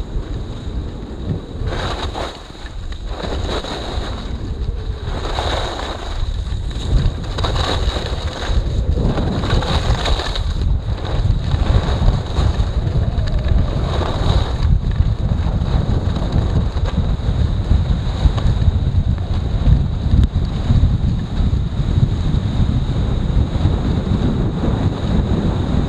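Wind buffeting the microphone during a downhill ski run. From about two seconds in to about fifteen seconds in, it is overlaid by a series of swishes from skis carving turns through snow, after which the wind rush continues alone.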